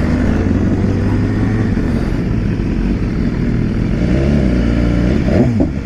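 Motorcycle engine running at low, fairly steady revs, with a short rise and fall in pitch near the end.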